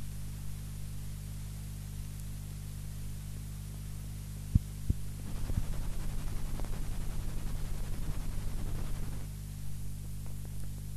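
Steady mains hum with faint hiss from a cassette transfer playing blank tape after the last track. Two sharp clicks come about four and a half seconds in, followed by about four seconds of fast crackling.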